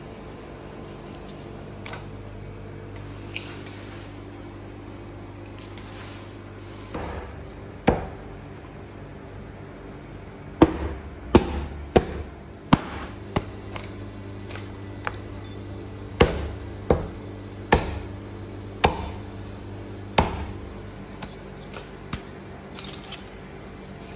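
Hatchet chopping lamb on a wooden chopping block: a run of about a dozen sharp, heavy chops beginning about seven seconds in, mostly in two clusters. A steady low electrical hum runs underneath.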